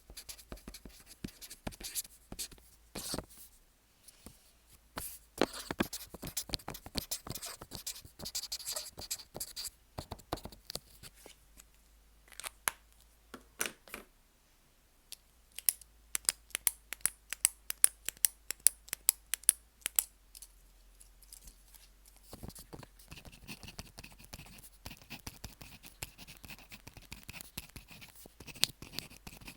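Pen writing characters on paper, picked up by a microphone fixed to the sheet: scratchy strokes and sharp taps of the tip. There is a short lull about halfway, then a quick run of taps followed by longer scratchy strokes.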